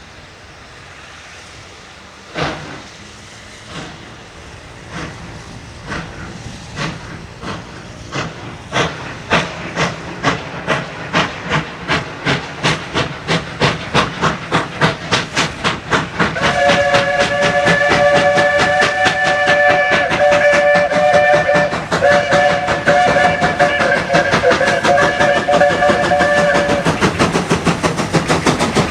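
Ex-SAR Class 19D steam locomotive working hard, its exhaust chuffs starting slow and quickening as it gathers speed and grows louder. About halfway through, its chime whistle sounds two long blasts of several tones together, with a brief break between them.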